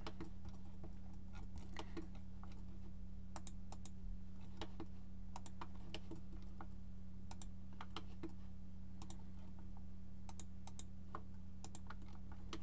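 Irregular clicks of a computer mouse and keyboard being worked, sometimes several in quick succession, over a steady low electrical hum.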